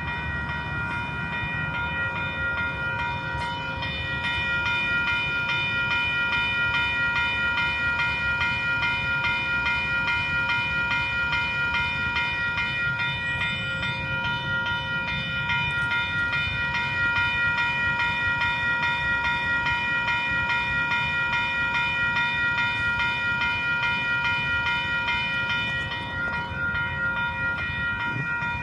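Western-Cullen-Hayes electronic crossing bell ringing continuously in rapid repeated dings while the crossing is active with the gates down, over a low rumble. It gets a little louder about four seconds in.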